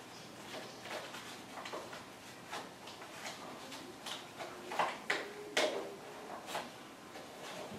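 Cardboard software box and its paper booklets being handled and packed back together: scattered light taps, clicks and sliding scrapes, with a few louder knocks and a short scrape about five seconds in.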